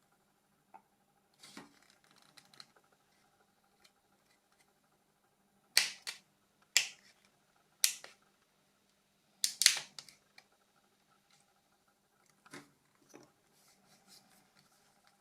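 Sharp clicks and taps of small Nokia E90 plastic parts and tools being handled and set down during disassembly, a few faint ones at first, then a louder cluster of about six clicks between six and ten seconds in, and a couple more later.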